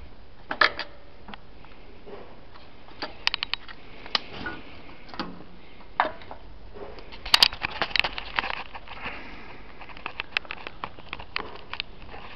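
Irregular clicks and light knocks as a cordless jigsaw is handled on a workbench, with a short cluster of sharper clicks about seven to eight seconds in; the saw's motor is not running.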